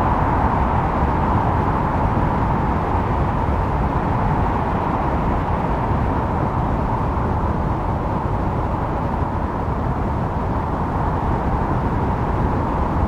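Wind blowing steadily: a continuous rushing noise over a low rumble, with no gusts or breaks.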